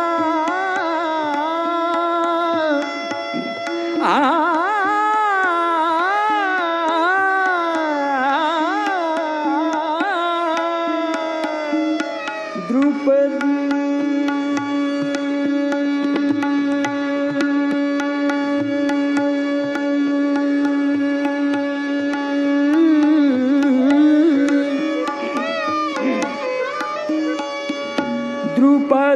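Hindustani classical bhajan in Raga Bhairavi: a melodic line full of sliding ornaments, settling into one long held note about halfway and moving again near the end, over tabla playing a steady keherwa rhythm.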